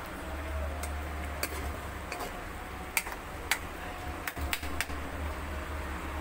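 A cooking spoon stirring a pan of chicken stew, with scattered light clicks and knocks against the pan, over a steady low hum.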